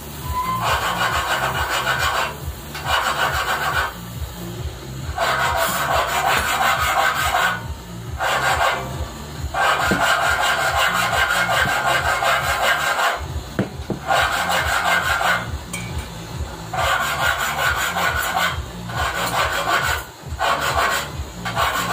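Stainless steel sign letter being rubbed on a wooden work board, rasping metal-on-wood scraping strokes in about ten bursts of one to three seconds with short pauses between.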